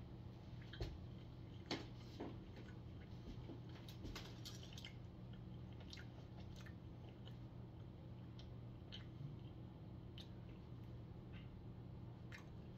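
A man chewing a mouthful of Kinder chocolate eggs, eaten two at once. Faint mouth clicks and smacks, with a few sharper ones in the first couple of seconds, over a steady low hum.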